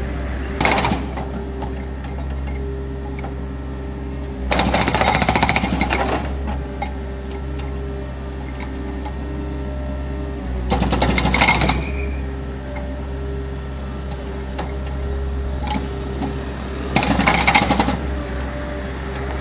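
Hydraulic breaker on a Mustang skid-steer loader hammering into pavement in four bursts of rapid blows, a brief one about half a second in and then longer runs of a second or so, several seconds apart. Between the bursts the loader's engine runs steadily.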